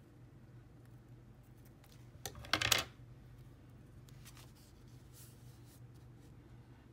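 Hands handling stickers and paper on a journal page: a short, loud crinkling rustle about two and a half seconds in, then a few faint taps and rubs over a low steady hum.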